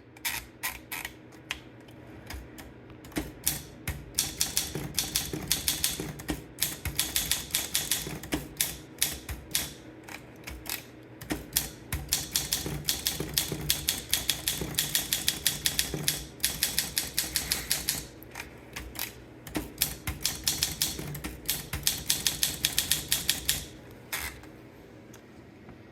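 Olympia SM2 portable manual typewriter being typed on: runs of quick, sharp keystrokes with a few short pauses between them. The typing stops about 24 seconds in.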